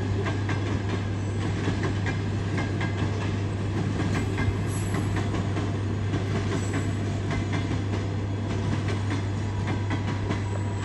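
Passenger train coaches rolling past, their wheels clicking over rail joints, over a steady low hum.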